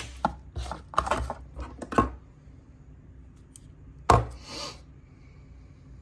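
Unwrapping and handling a boxed utility knife: a quick run of clicks, taps and packaging rustles, then one sharp knock about four seconds in followed by a brief rustle.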